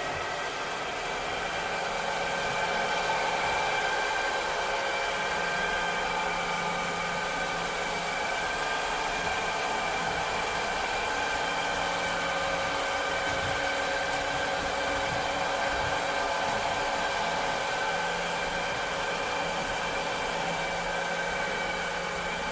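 Robot vacuum cleaner running: a steady whirring hiss with several steady whining tones over it, and a low hum that fades in and out every few seconds.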